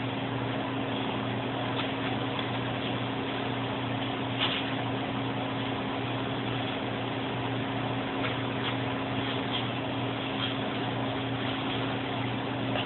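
Faint crinkles of plastic bubble wrap as a kitten paws and bites it, a few light crackles scattered through. Under them runs a steady low electrical hum with hiss.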